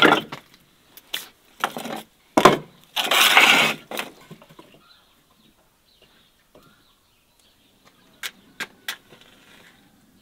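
Split firewood logs knocking together and scraping as they are stacked on the floor of a brick oven: a series of loud wooden clunks and a short scrape in the first four seconds, then quiet, with three quick knocks near the end.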